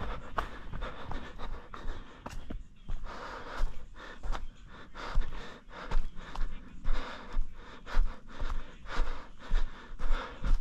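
A runner breathing hard, panting in a steady rhythm of about three breaths every two seconds, with running footfalls on the trail underneath.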